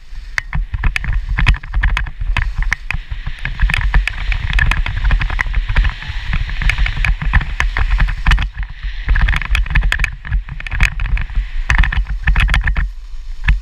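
Skis hissing and scraping over groomed snow at speed, with frequent sharp clatters, while wind buffets the helmet-mounted camera's microphone in a heavy rumble. It eases off just before the end as the skier slows to a stop.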